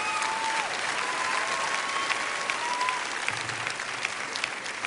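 Concert audience applauding and cheering, with a long whistle held about one to three seconds in; the applause thins out toward the end.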